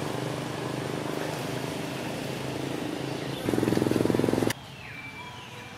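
Macaque sounds over a steady low hum. About three and a half seconds in, a louder, rapidly pulsing monkey grunt lasts about a second and cuts off suddenly. Faint whistling calls follow.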